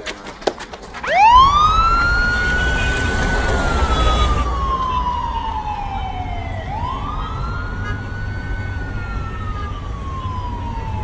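Police van siren sounding in a slow wail, starting about a second in: the pitch rises quickly, then falls slowly over several seconds before rising again, over a low rumble. A few short knocks come just before it starts.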